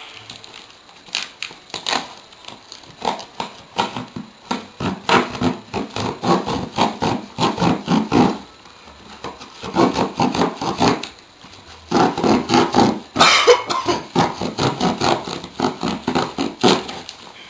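Packing tape being ripped off a cardboard box and the cardboard crackling and rustling as it is pulled open, in rapid runs of tearing strokes with a longer, harsher rip about three-quarters of the way through.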